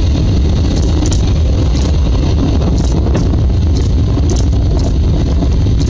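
Distant rumble of a SpaceX Falcon 9 rocket climbing away after launch, a steady low rumble.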